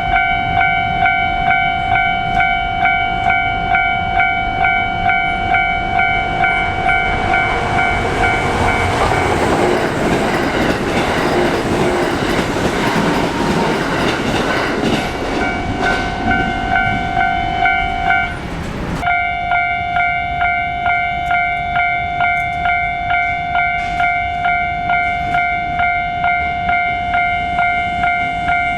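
Japanese railway level crossing's electronic warning bell ringing in steady repeated dings, about one and a half a second. An electric train passes from about nine to sixteen seconds in, its wheels on the rails drowning the bell. The bell breaks off for a moment at about eighteen seconds and starts again.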